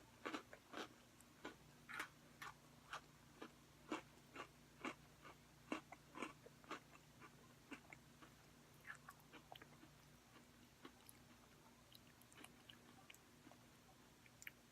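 Close-up chewing of crunchy Oreo sandwich cookies, a run of sharp crunches about twice a second that thins out after the first half.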